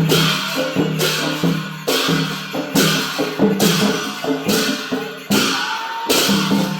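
Percussion music for a Newar Lakhe dance: drums and cymbal clashes keep a steady beat of about one stroke a second. A held higher note joins near the end.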